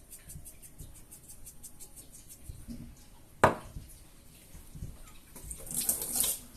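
Salad preparation sounds: a run of fast, faint, even ticks, one sharp knock about halfway through, then a brief hiss near the end.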